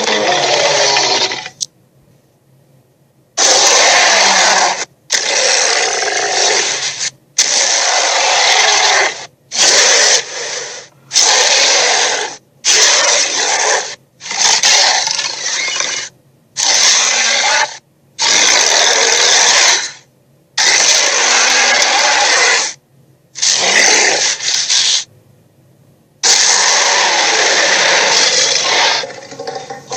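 A series of dragon sound effects: more than a dozen harsh, raspy growls and roars, each lasting one to two seconds, with short silences between them.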